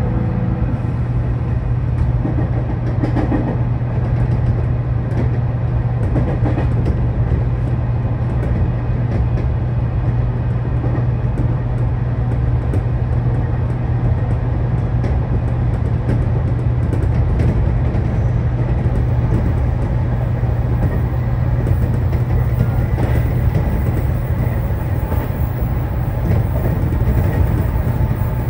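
Electric commuter train running along the track, heard from inside the car: a steady low hum under a constant rumble of running noise, with faint wheel clicks over the rails.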